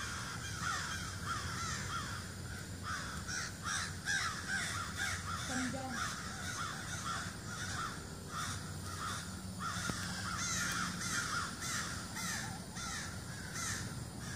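A chorus of many birds calling loudly and constantly, short harsh calls tumbling over one another: alarm calls, the birds mobbing a black bear sitting up in a tree.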